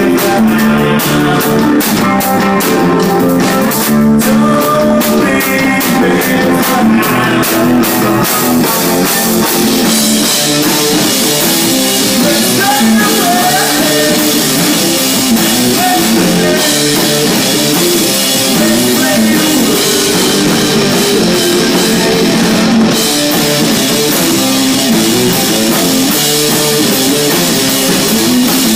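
Rock band playing loudly, with guitar and drum kit: quick, regular drum hits through the first several seconds, then a denser wash of cymbals and guitar from about a third of the way in.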